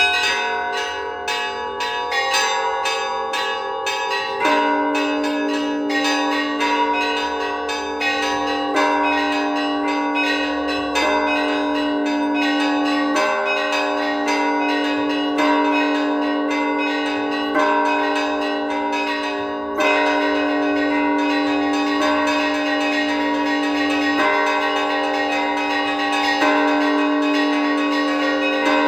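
Orthodox cathedral bells rung by hand in a free improvisation: small treble bells struck in a rapid, busy pattern over ringing middle bells. A deeper bell is struck about every two seconds from about four seconds in.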